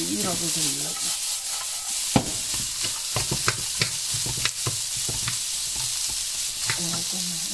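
Ground pork and diced vegetable stuffing sizzling steadily in a nonstick frying pan as it is lightly seared, stirred with a wooden spatula that taps and scrapes against the pan about a dozen times.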